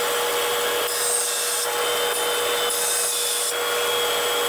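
Vertical bandsaw cutting through a welded 7075 aluminium test piece: a steady hum under a cutting hiss that swells and fades every couple of seconds.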